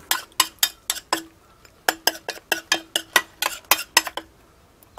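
Metal spoon knocking and clinking against the side of a bowl while stirring chicken in a thick masala marinade, about four to five ringing knocks a second. There is a brief pause about a second and a half in, and the knocking stops a little after four seconds.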